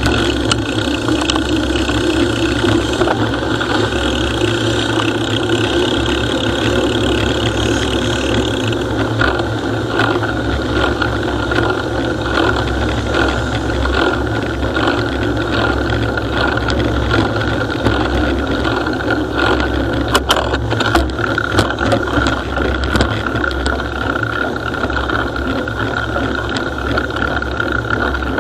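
Steady wind and road rumble from a moving bicycle, with the bike rattling over the pavement and a cluster of sharp clicks about two-thirds of the way through.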